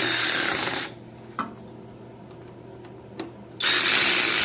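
A power drill-driver runs for about a second snugging down the shifter's bolts, stops, and runs again near the end. A couple of light metal clicks sound in the pause between.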